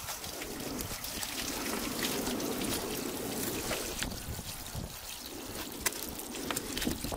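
Water trickling from a hose onto a large fish on the table, with small clicks and scrapes as a knife cuts along the fish.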